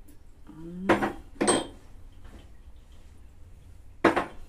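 Dishes and cutlery clattering as they are handled in a kitchen: three sharp knocks, about a second in, half a second later and near the end.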